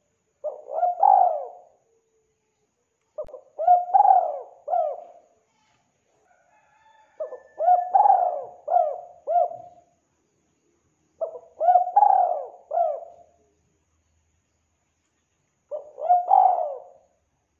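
Spotted dove cooing: five phrases of several coos each, coming about every four seconds, with silent gaps between them.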